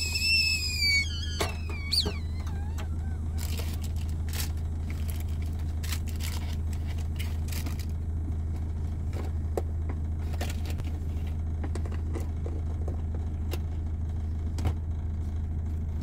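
Camper van's engine idling with a steady low hum, running to charge the leisure batteries through the split charger. A high whistling tone falls and stops about a second in, and small clicks and knocks of items being handled on a shelf come and go.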